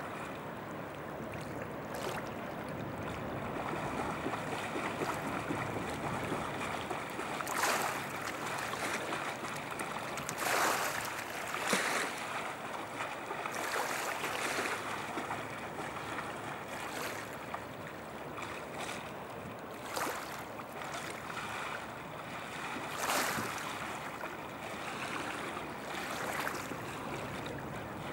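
Rhine river water washing against the shore over a steady rush of water, with several louder splashing surges.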